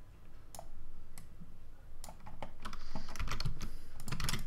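Keys tapped on a computer keyboard: a few scattered taps, then a quicker run of them in the last second and a half.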